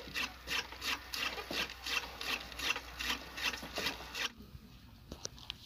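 Hand-cranked saag cutter chopping fresh mustard greens: a rhythmic rasping crunch of blade strokes, about three a second, which stops about four seconds in, followed by a few faint clicks.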